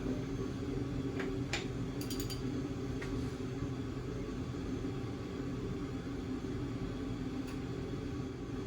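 Steady low mechanical hum, with a few faint metallic clicks and taps in the first few seconds and once near the end.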